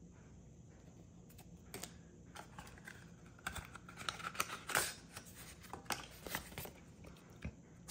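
Hands handling a stiff cardboard game card and a folded paper instruction leaflet on a glass tabletop: a quiet run of light taps, clicks and paper rustles that starts about two seconds in and is busiest in the middle.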